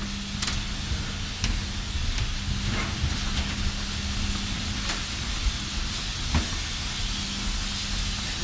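Steady rushing-air hiss over a low rumble, with a constant low hum: the air-handling noise of an airport jet bridge at a parked airliner's door. A few scattered light knocks sound through it.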